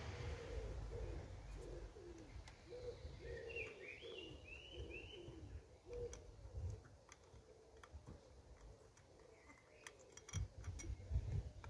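A pigeon cooing over and over, faint, through the first half, with a small bird chirping briefly. Near the end come light clicks and knocks from hands working on a small brass steam engine.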